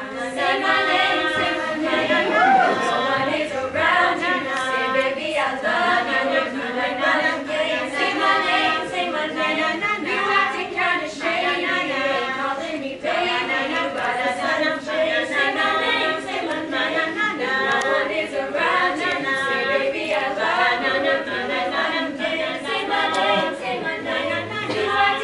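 All-female a cappella group singing in layered harmony, voices only, no instruments. The singing comes in at full strength right at the start, after a quieter moment.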